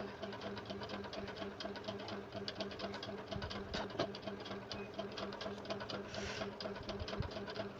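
Steady rapid ticking, about ten ticks a second, over a low steady hum, with a short hiss about six seconds in.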